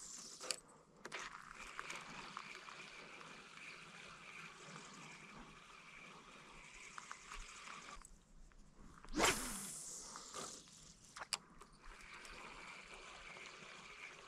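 Spinning reel winding in a spinner lure with a steady whir. About nine seconds in the whir stops and a cast goes out with a sudden swish, followed by a couple of sharp clicks and the steady reel whir again.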